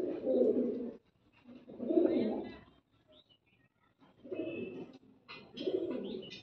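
Domestic pigeons cooing, four bouts of low coos each lasting about a second with short pauses between them.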